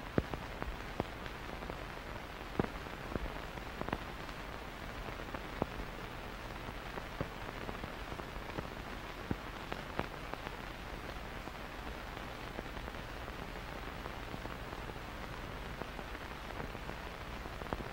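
Faint steady hiss with scattered irregular clicks and pops: the surface noise of an old film soundtrack, with no other sound on it.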